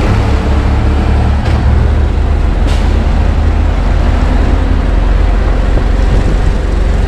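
A motor vehicle's engine running steadily, a loud low drone with road noise.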